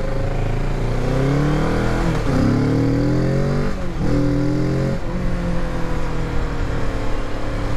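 Kawasaki Z650's parallel-twin engine, restricted to 48 PS, accelerating through the gears. Its note rises and drops sharply at three upshifts in quick succession, then holds steady, over wind noise on the helmet microphone.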